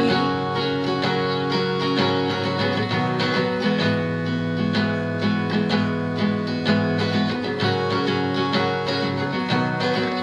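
Instrumental break of a country-style song: plucked acoustic guitar playing an even run of notes over steady low chords.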